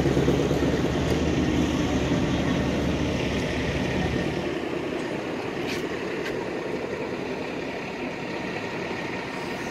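2020 Shelby GT500's supercharged 5.2-litre V8 running at low revs as the car pulls away. Its low exhaust note fades out over the first four or five seconds.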